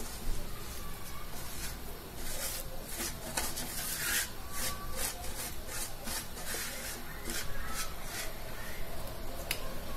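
Hand scraping moist semolina dough along the inside of a large wooden bowl and letting it drop into a round metal baking tray. The strokes are short, irregular and rasping.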